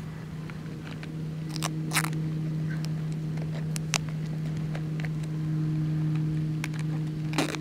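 Short scratchy rasps of tape being torn and peeled off an RC outrigger boat's hatch as the hull is handled: about half a dozen separate rips and clicks, the loudest near the end. A steady low hum runs underneath.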